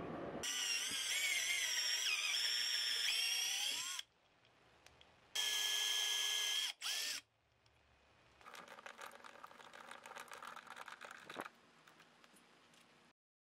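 Cordless drill running in two runs against a wall: a whine that wavers in pitch for about three and a half seconds, then a steadier whine for about a second and a half. Then a few seconds of faint, irregular scratchy clicking as a screw is turned in by hand with a screwdriver.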